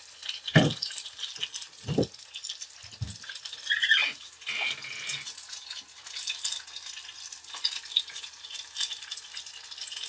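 Hot oil frying with a light crackle and hiss, with a few dull thumps in the first few seconds and a brief squeak near the middle.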